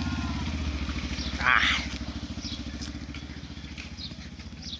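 A motorcycle engine running nearby with a rapid low pulsing that slowly fades. About a second and a half in, a short loud call cuts across it.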